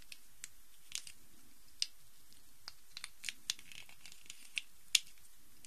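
Plastic Rubik's cube pieces clicking and tapping as they are handled and fitted back onto the cube's core: about a dozen sharp clicks at irregular intervals, the loudest about five seconds in.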